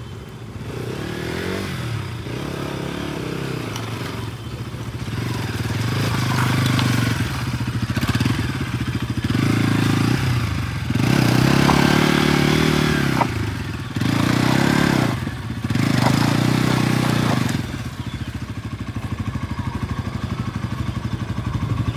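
Bajaj Pulsar NS200's single-cylinder engine pulling the motorcycle through sticky clay mud. The revs rise and fall in several hard bursts in the second half, then settle to a steady lower run near the end.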